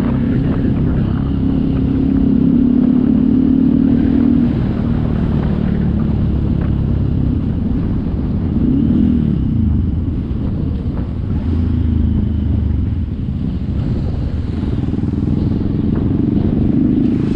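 Motorcycle engine running while riding, a steady drone whose pitch shifts with the throttle, briefly rising and falling about halfway through.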